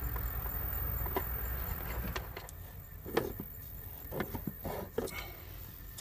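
Scattered small clicks, knocks and rattles of hands fitting a 12-volt socket into a wooden cabinet panel and reaching into the cabinet behind it to fit its lock nut. A low steady hum underneath drops away about two seconds in.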